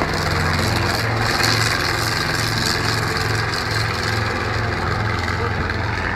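Light helicopter flying low: steady engine and rotor noise with an even low pulsing.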